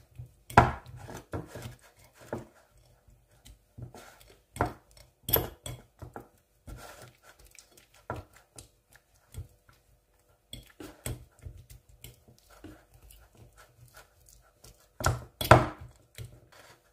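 Metal fork mashing canned kidney beans on a ceramic plate: irregular clinks and scrapes of the tines against the plate, with a few louder knocks about half a second in, around five seconds in, and near the end.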